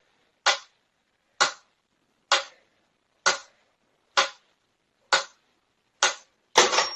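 A short, sharp tap or click repeated seven times at an even pace of about one a second, with dead silence between, followed near the end by a burst of clattering noise.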